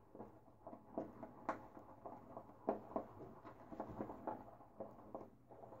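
Shaving brush being whipped around a bowl of shave soap lather, making faint, quick, irregular strokes several times a second.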